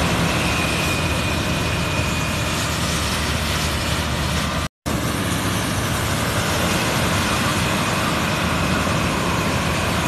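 Self-propelled corn harvester running steadily in the field, its engine and machinery making a dense, even noise. The sound cuts out completely for a split second just before halfway.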